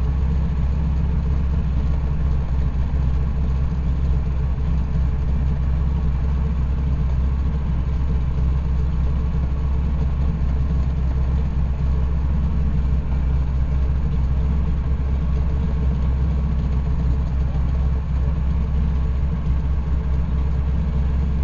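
The nine-cylinder Pratt & Whitney R-1340 Wasp radial engine of an AT-6 Texan running steadily in flight, heard inside the rear cockpit as a loud, even, low drone.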